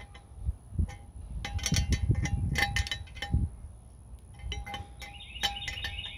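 Metal wrench clinking and clanking against the brass fittings of a vintage gasoline blow torch as it is fitted and turned to tighten the needle valve, with dull handling knocks under the clinks.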